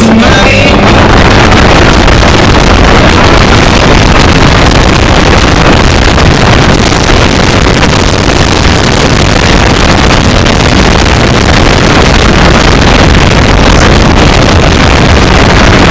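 Car engine and wind noise heard from inside the cabin as the car is driven at speed around a racetrack; a steady, very loud wash that overloads the recording.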